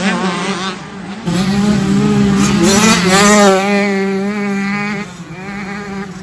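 Two-stroke 65cc motocross bike engines racing, revving up and down as the riders work the throttle through the sand. The sound gets louder about a second in and eases off near the end.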